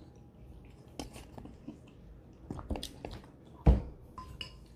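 Close-up eating sounds: chewing and mouth clicks over spoonfuls of creamy chicken soup, with a few light clicks and one louder knock about three-quarters of the way through.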